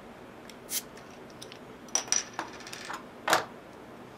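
Bottle opener prying the crown cap off a glass beer bottle: a few metal clicks, a cluster of ringing metallic clinks about two seconds in, and the loudest, sharpest snap a little after three seconds.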